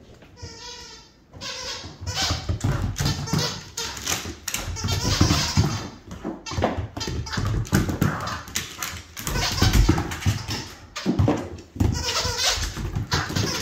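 A dog playing wildly on a hard vinyl floor: a rapid, uneven run of paw thumps and scrabbles, mixed with the dog's own play noises. There is a wavering pitched call about a second in and another near the end.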